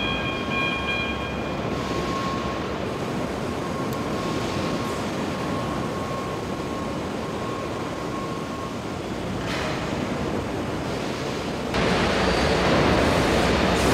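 Car-factory press-shop machinery noise: a steady industrial rumble with a few faint high tones in the first couple of seconds. It grows louder about twelve seconds in.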